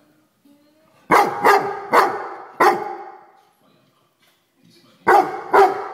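Weimaraner barking at a housefly: a quick run of four barks about a second in, then two more near the end.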